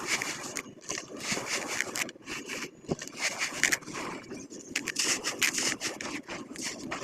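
Charcoal concrete crumbling in water, making irregular crackling, scraping crunches in quick bursts.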